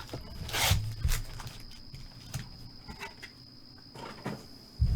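Trading card blaster box being handled and opened: a short rustle of wrapping about half a second in, then scattered light clicks and a knock near the end, over a faint steady high whine.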